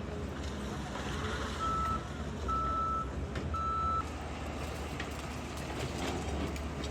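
Reversing alarm on a heavy earth-moving machine clearing rubble, beeping three times about a second apart, over the machine's steady low engine rumble.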